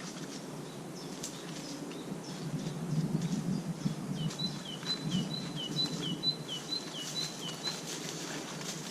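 A small songbird repeating a quick two-note phrase, a high note dropping to a lower one, about eight times in a row, two or three a second, over a low steady outdoor rumble.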